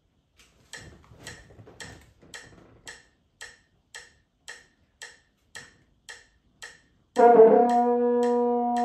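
A metronome clicks steadily at about two beats a second. About seven seconds in, a double French horn enters on a long held note, loud over the clicks, which continue underneath.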